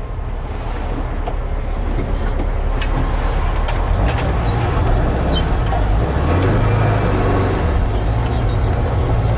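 Air-cooled flat-four engine of a 1970 Volkswagen Type 2 van running, heard from inside the cab as a steady low hum. The hum grows stronger about six seconds in.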